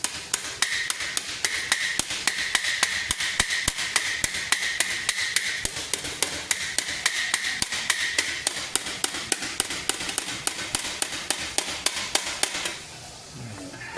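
Hammer blows on the metal plates of a Topfhelm (great helm), struck in a fast, steady rhythm of about four to five a second, with the plate ringing through much of it. The blows stop shortly before the end. The metal is being pounded flat along the helm's back edge, where two plates meet at a slight angle, so that they fit flush.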